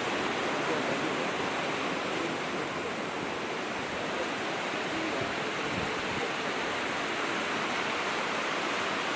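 Steady rush of a stream tumbling down rocky cascades and small waterfalls.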